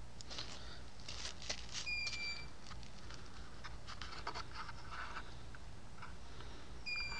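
Faint scattered clicks and light rustling, with a short, steady high beep about two seconds in and another near the end.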